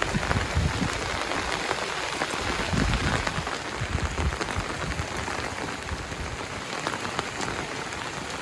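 Heavy rain falling steadily, a dense hiss of drops spattering on surfaces, with dull low thuds now and then, strongest a few seconds in.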